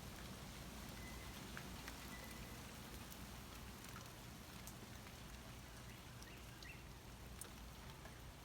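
Rain falling steadily, a faint even hiss with scattered sharper drip ticks.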